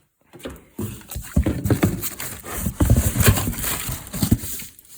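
Someone rummaging through parts by hand: a quick, irregular run of knocks, clunks and clatter with rustling, starting about half a second in.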